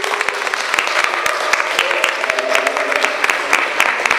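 A small audience applauding: many hands clapping steadily without a break.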